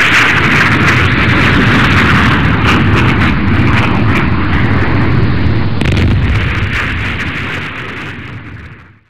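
Loud intro sound effect: a dense rumbling noise with scattered crackles, fading out near the end.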